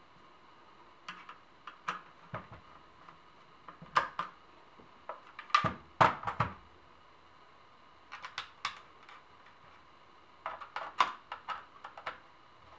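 Scattered hard clicks and knocks of polymer and metal rifle parts being handled as a Tavor's forearm is fitted back on and screwed down, coming in short clusters, the loudest about six seconds in.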